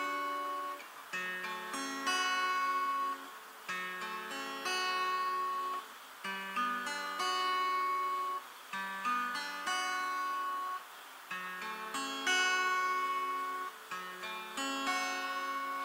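Acoustic guitar playing an instrumental intro of plucked and strummed chords. A new chord is struck about every two and a half seconds and left to ring.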